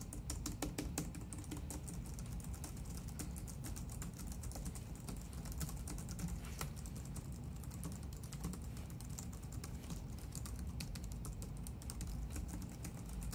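Continuous fast typing on a Logitech Craft keyboard: a steady stream of quiet, soft key clicks on its aluminium-bodied keyboard.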